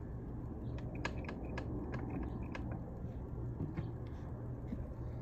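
Scattered light metallic clicks and taps of hands starting the mounting bolts on a replacement electric starter of an outboard motor, mostly in the first half, over a steady low hum.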